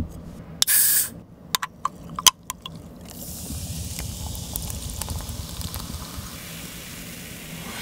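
Cola poured from a Coca-Cola can over ice into a glass, fizzing with a steady hiss. A short hiss about a second in is followed by a few sharp clicks and clinks.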